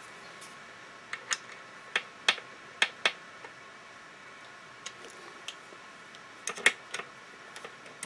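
Torque wrench clicking as the two saddle clamp bolts are tightened in turn toward a torque of 12 newton-metres. About a dozen sharp clicks, unevenly spaced, several in quick pairs.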